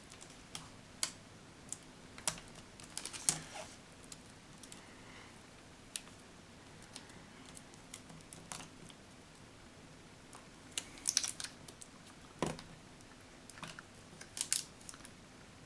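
Scattered small plastic clicks and taps of fingers working at a laptop's screen cable connector and the tape holding it, with a few quick clusters of clicks.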